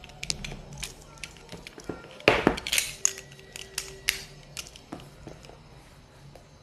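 A cardboard smartphone box being handled and turned over on a glass tabletop: a run of sharp taps and knocks, loudest in a short clatter a little over two seconds in, then scattered clicks that die away.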